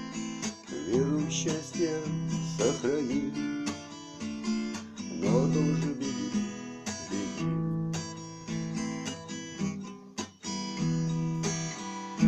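Acoustic guitar strumming chords in the instrumental close of a song, with a loud final strum right at the end.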